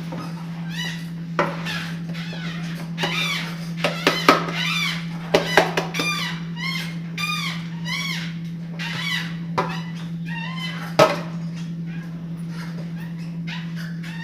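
Birds calling over and over in short, falling calls, with a few sharp knocks and a steady low hum underneath.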